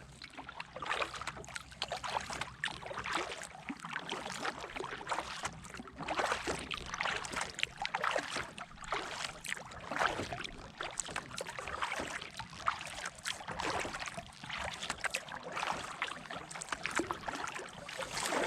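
Water splashing and trickling around a kayak under way: paddle strokes dipping in and dripping, with water slapping the hull in an uneven run of splashes.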